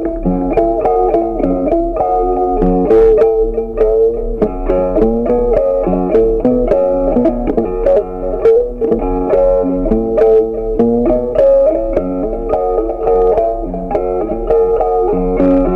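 Background music: a plucked guitar melody over a bass line, notes changing quickly and steadily throughout.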